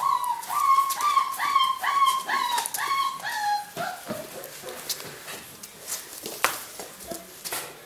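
Weimaraner puppy whining in a quick run of high, slightly falling yelps, about three a second, that drop lower and stop about four seconds in. After that, only puppies scuffling and clicking on the floor around the dead bird.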